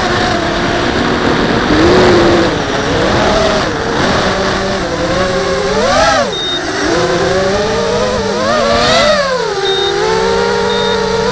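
Multirotor drone's electric motors and propellers whining as it flies, the pitch rising and falling with the throttle, with sharp swells about six and nine seconds in.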